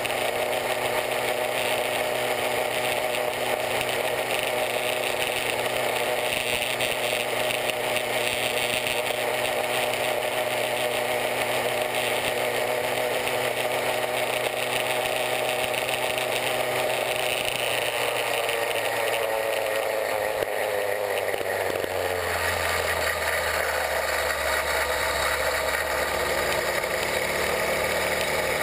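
Chinese 66/80cc two-stroke bicycle engine kit running with the bike under way, a steady buzz whose pitch drops about two-thirds of the way through and then holds lower.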